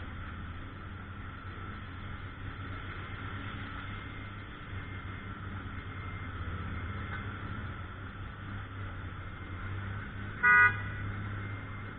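A vehicle horn gives one short toot near the end, over a steady low engine hum.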